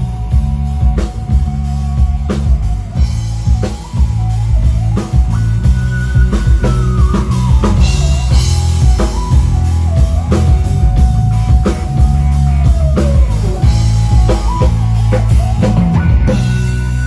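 Live band music: a drum kit keeping a steady beat over bass and electric guitar, with a melody line that slides and holds long notes above.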